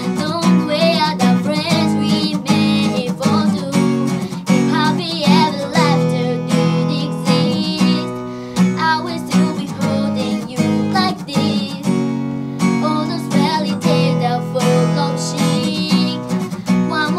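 Live acoustic music: a strummed acoustic guitar accompanying a female voice singing a pop song.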